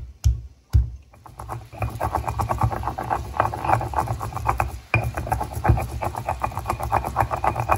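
Volcanic-stone molcajete and stone pestle crushing a garlic clove with cumin and oregano: two sharp knocks of stone on stone in the first second, then fast, steady grinding and scraping strokes of the pestle around the rough bowl.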